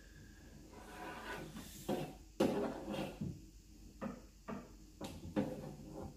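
Steel front wing of a 2018 Ford Fiesta popping and clicking as a paintless dent repair rod pushes the dent out from behind, the metal moving under tension. It is a series of about six sharp knocks, the loudest about two and a half seconds in.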